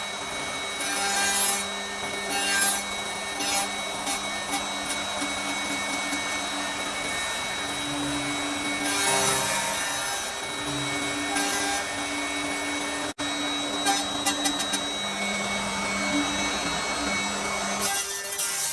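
CNC wood lathe with multiple cutter heads turning wooden blanks. A steady motor hum runs under a rasping wood-cutting noise that swells into louder bursts every few seconds.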